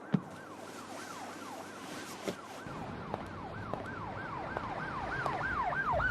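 Siren sound effect in a dance track's breakdown: a fast yelping siren, its pitch jumping up and falling about three times a second, growing louder toward the end, with a low bass rumble coming in partway through.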